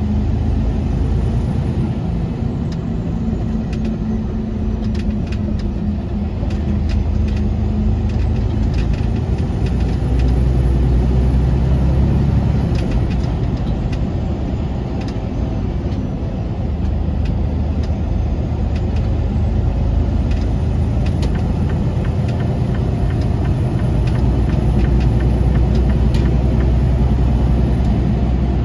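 Steady low engine and road rumble of a semi-truck heard from inside the cab, with scattered sharp ticks over it.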